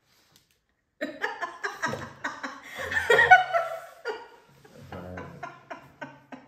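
People laughing in fits and bursts after a second of silence, loudest about three seconds in, then trailing off into softer giggles.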